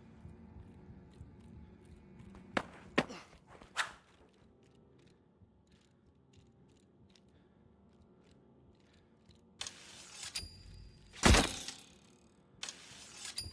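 Cherrywood recurve bow being shot: a few light clicks, then a short hiss of a shot about 10 seconds in followed a second later by one loud thunk of the arrow striking, and another shot's hiss near the end.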